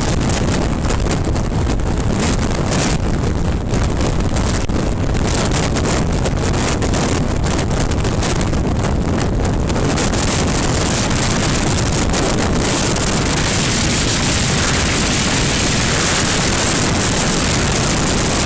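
Steady wind rush over the microphone, with the engine and tyre noise of a BMW 1200 Adventure's boxer-twin motorcycle cruising at speed underneath. The hiss grows brighter about ten seconds in.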